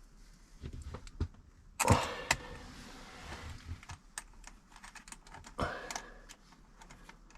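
Small metal parts and tools being handled: scattered clicks and light rattles, with a louder scraping clatter about two seconds in and a short one with a brief ring later, as a nut is worked onto a battery terminal.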